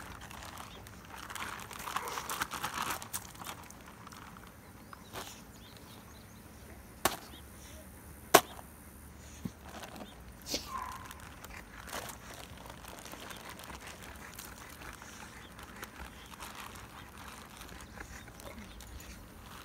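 Plastic bags rustling and crinkling as raw chicken pieces are shaken out of them, loudest in the first few seconds, with a handful of sharp clicks or knocks scattered through, the loudest about eight seconds in.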